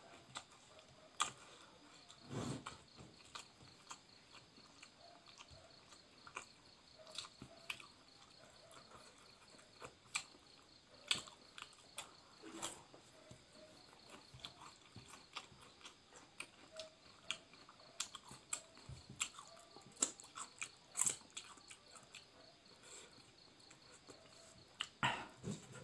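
Close-up eating sounds of a rice meal eaten by hand: chewing, with many short, irregular wet clicks and smacks.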